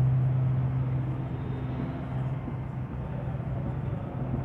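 Steady low electrical or mechanical hum of the room's background noise, easing off somewhat in the middle.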